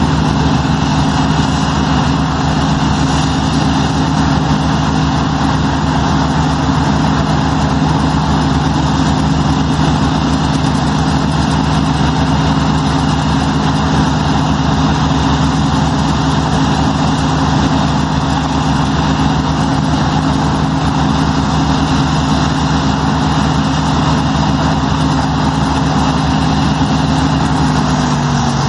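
New Holland CSX 7050 combine harvester running steadily while harvesting: a continuous engine drone with the rush of the threshing machinery. Its pitch starts to drop at the very end.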